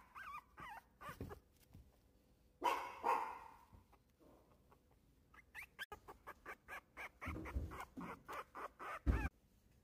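Young Yorkshire terrier puppy whimpering and yelping: a few faint squeaks, a louder cry about three seconds in, then a run of short whines at about two or three a second through the second half, the loudest just before the end.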